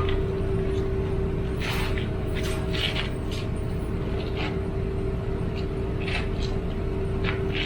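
Steady low rumble of a car on the move, heard from inside, with a constant hum and scattered short hissy sounds.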